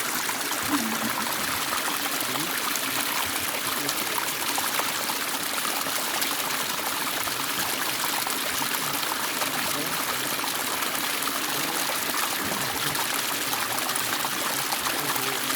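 Hill stream water splashing and trickling in a steady, even flow.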